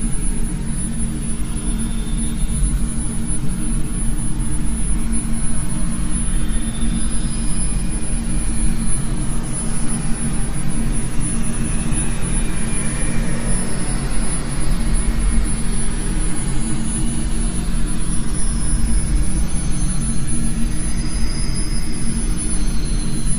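A steady, loud, low droning rumble with faint high tones drifting in and out, an eerie ambient drone soundtrack.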